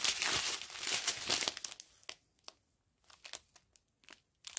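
Strip of sealed plastic sachets of diamond-painting drills crinkling as it is handled, dense for about two seconds, then a few scattered crackles.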